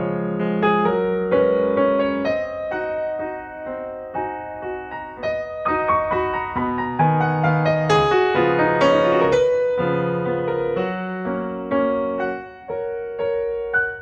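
Background piano music: single notes and chords struck one after another, each fading after it sounds.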